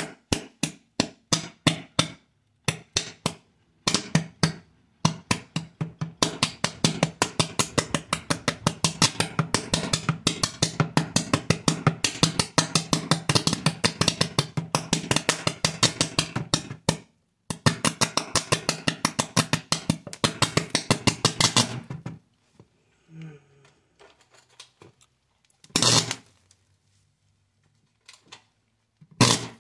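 Electric arcs snapping between a metal probe and a charred circuit board: a string of sharp snaps that quickens into a fast, even run of about six a second, pauses briefly, runs on and then stops. Two single, louder cracks follow near the end.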